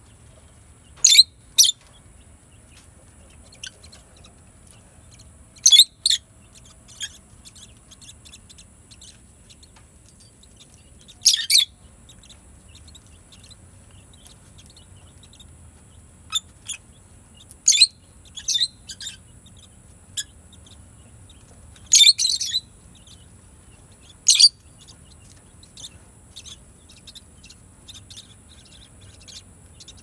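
Peach-faced lovebirds giving short, shrill chirps every few seconds, some singly and some in quick pairs.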